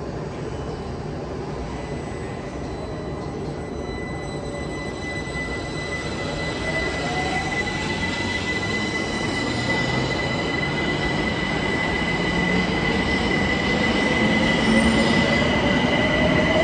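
London Overground Class 378 Electrostar electric train pulling away from the platform, its traction motors whining in a rising pitch as it picks up speed over a rumble of wheels on rail. A steady high-pitched squeal joins in about a third of the way through, and the sound grows louder throughout as the carriages pass.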